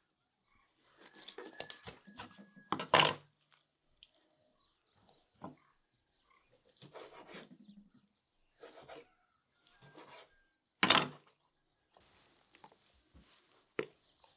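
A kitchen knife cutting through a whole raw chicken on a wooden cutting board, with irregular wet handling noises of the skin and flesh as it is split open and pressed flat. Two much louder sharp sounds come about three seconds and eleven seconds in, and a short sharp click near the end.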